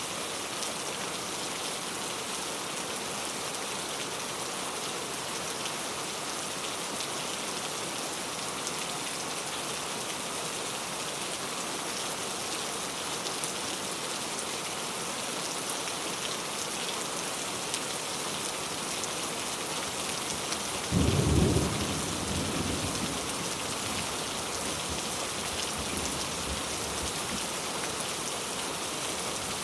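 Steady rain falling, with one sudden loud low clap of thunder about two-thirds of the way through that rumbles away over a couple of seconds.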